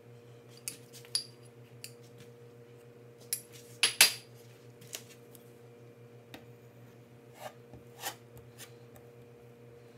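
Metal spoon and a multi-tool scraper clinking and scraping while spreading wet water putty on a door, with scattered sharp metal clinks, the loudest about four seconds in. A faint steady hum runs underneath.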